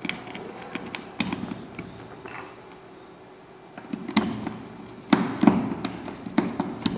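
Scattered metal clicks, taps and knocks as a metal cover plate is seated on a surface-mounted electrical box and a screwdriver works its fixing screw. The knocks come in small clusters, loudest around five to six seconds in.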